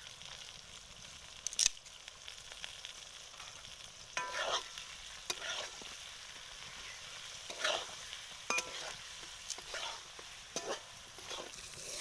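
Flat beans sizzling as they fry in oil in a metal kadai. A metal spatula stirs them, scraping against the pan every second or two.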